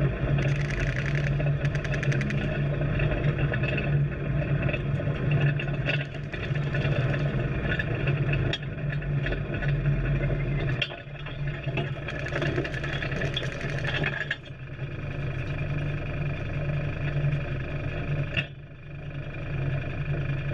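Engine of a military side-by-side all-terrain vehicle running as it drives along a dirt track, heard up close from its hood: a steady drone with occasional sharp knocks and rattles. The engine note eases off briefly a few times, most deeply near the end.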